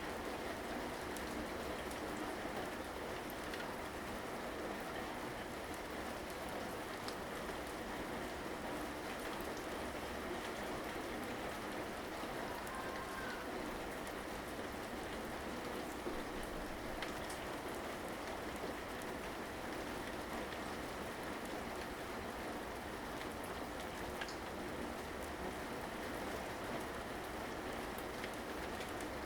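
Steady rain falling, with a few faint drop ticks here and there.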